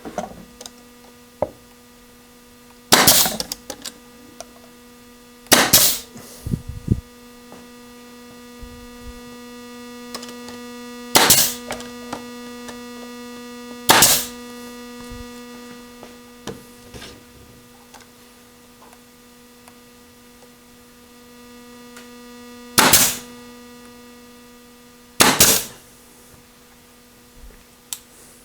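A machine's motor runs with a steady, even-pitched hum. Six short, loud bursts of noise cut in over it, each about half a second long, and the hum stops near the end.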